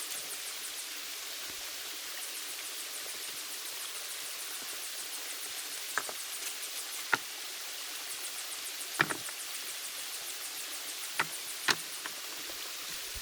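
Steady rain hiss with a fast, even high ticking over it and a few sharp clicks or taps scattered through it.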